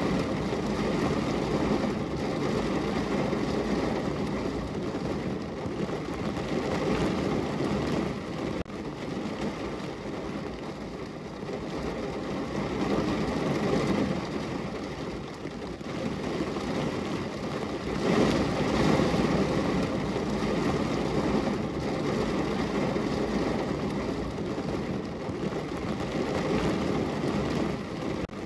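Steady rain falling on a window pane: a dense, even hiss that swells louder and eases back a few times.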